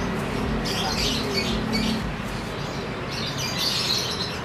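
Many caged canaries and lovebirds calling together in scattered bursts of short, high calls, over a low background hum.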